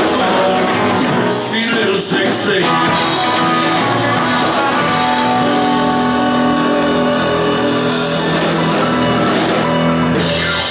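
Live rock and roll band playing on electric and acoustic guitars, keyboard and drums. The song ends on a long held chord that stops near the end.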